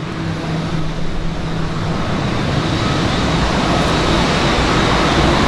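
Boeing 787-9 airliner's jet engines at taxi power, a steady rushing sound with a few held tones that grows louder as the aircraft approaches.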